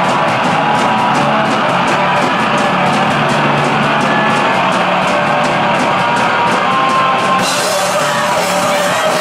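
Live D-beat noise-punk band playing loud and distorted: bass guitar, heavily distorted guitar and fast drums with regular cymbal strikes. About seven seconds in, the cymbals open up into a steady crash wash.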